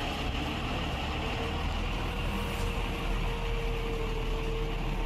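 A heavy truck's engine running as the truck rolls slowly past, a steady low rumble, with a steady hum joining about a second in.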